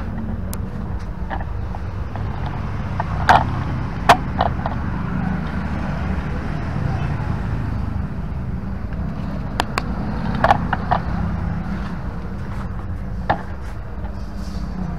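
Scattered sharp clicks and knocks from handling plastic parts and the camera while working on an e-bike's rear body, over a steady low hum. The loudest clicks come about three and four seconds in and again around ten seconds.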